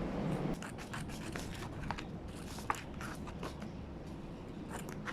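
Scissors cutting a plastic sheet: a run of short, crisp snips and scraping clicks at an uneven pace.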